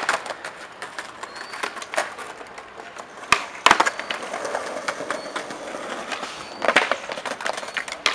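Skateboard wheels rolling over stone paving, with sharp clacks of the board striking the ground, the loudest pair about three and a half seconds in and more near seven and eight seconds.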